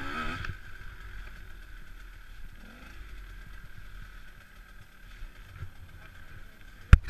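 KTM 125 EXC two-stroke enduro engine revving briefly, then idling low and steady, with one sharp knock near the end.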